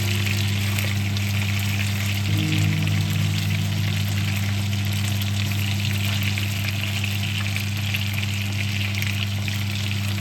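Food sizzling and crackling as it fries in hot fat in a pan, under background music with long held low notes.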